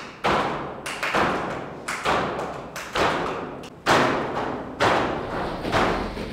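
An irregular series of sharp thumps and knocks, about eight in six seconds, each followed by a long echo as in a large hall.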